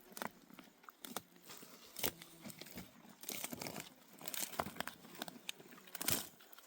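Dry plant stems and leaves rustling and crackling, with a few sharp snaps, as wild herbs are pulled and torn by hand.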